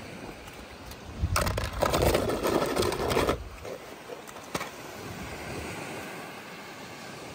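A die-cast toy car clattering and scraping against the inside of a plastic tub for about two seconds, with one more sharp click a moment later, over faint wind and surf.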